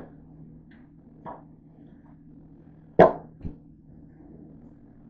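Metal sheet pan pushed into a countertop toaster oven: light metallic knocks, then a sharp clunk about three seconds in and a smaller knock just after, over a steady low hum from the oven.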